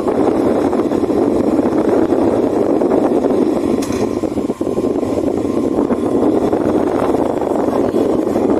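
Arge Max 50 cm 160 W wall fan blowing, its airflow rushing and fluttering loudly against the microphone.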